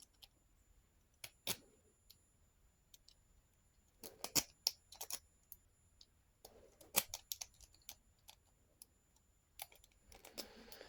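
Lock pick raking in a lock's keyway: faint, scattered small metallic clicks and scrapes, coming in short clusters about one and a half, four to five, and seven seconds in.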